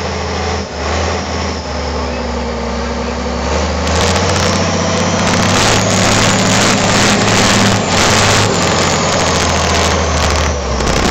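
Tatra 815 trial truck's diesel engine working hard as the truck climbs a steep, muddy slope. It gets louder and harsher, with a crackling noise on top, from about four seconds in as the truck comes close.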